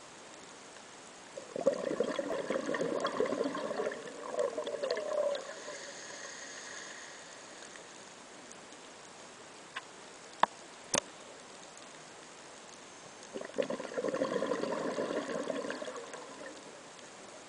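A scuba diver's exhaled air bubbling out of the regulator underwater: two long bursts of gurgling bubbles, one a couple of seconds in and one near the end. Three sharp clicks come around the middle, between the breaths.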